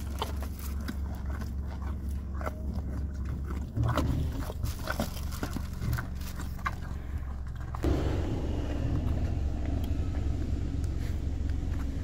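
Elk crunching and chewing carrots at a part-open car window: a run of short, sharp crunches over the low hum of the idling car. About eight seconds in, the crunching gives way to a steady rushing noise.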